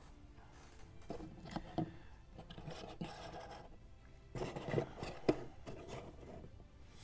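Plastic board-game miniatures being handled and set down: light knocks and scraping of their plastic bases on the board, with a cluster of sharper knocks about four to five seconds in.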